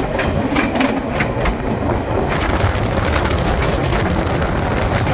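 Passenger train running on the rails, heard from an open coach door: a steady rumble with sharp wheel clacks over rail joints, turning into a denser, louder rushing noise about two seconds in.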